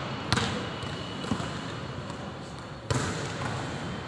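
Volleyball being struck: two loud smacks about two and a half seconds apart, each ringing on in the echo of a large hall.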